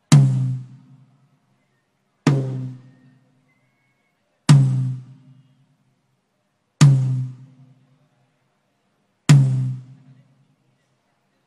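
A single drum of a drum kit struck one hit at a time for a soundcheck, five strikes about two seconds apart, each with a sharp attack and a low pitched ring that dies away in about a second.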